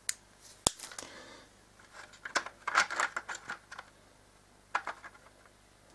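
Handling noise from electrical cables and small plastic fittings: a sharp click under a second in, a flurry of scraping and rattling about two to three seconds in, and a couple more clicks near the end.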